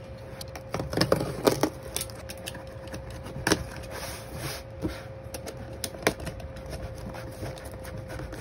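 Hands tapping, rubbing and scratching at a cardboard shipping box and its packing tape: irregular knocks and scrapes, the strongest about a second in, over a faint steady hum.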